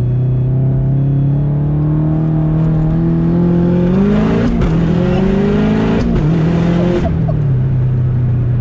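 Tuned 500 hp Subaru WRX with an EJ25 turbocharged flat-four, heard from inside the cabin under hard acceleration. The engine's pitch climbs steadily, then drops and climbs again twice as it shifts up, with a loud rushing noise over the last pulls. Near the end it lets off and settles to a steady, lower running note.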